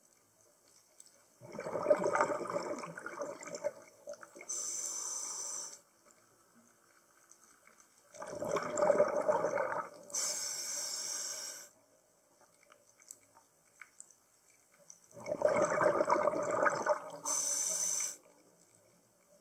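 Scuba diver breathing through a regulator underwater: three breath cycles about seven seconds apart, each a loud rush of exhaled bubbles followed by a steadier hiss from the regulator.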